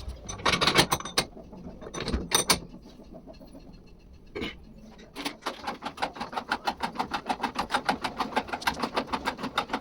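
A few separate mechanical clicks and clinks, then from about halfway in a rapid, even clicking of roughly eight clicks a second, like a hand tool being worked on the pump.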